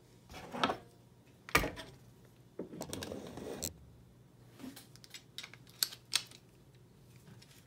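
Hands handling a motorcycle rear shock absorber whose coil spring is held compressed with rope and turnbuckles: scattered sharp clicks and knocks of hard parts, the loudest about a second and a half in, and a rustling scrape lasting about a second near the three-second mark.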